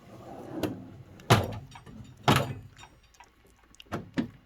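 Metal drawers of a 10-drawer rolling tool cart sliding along their tracks and shutting with two sharp metal bangs, a little over a second in and again a second later, followed by a few lighter clicks.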